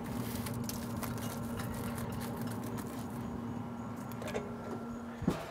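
Steady hum of a running pellet smoker's fan, with crinkling and clicks of aluminium foil as a wrapped pork shoulder is handled on the grate. The hum stops about five seconds in with a short thump as the smoker lid comes down.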